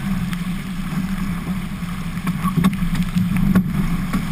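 Albacore sailing dinghy moving fast through choppy water: a steady rush of water along the hull with wind buffeting the boat-mounted camera, and a few sharp taps about two to three and a half seconds in.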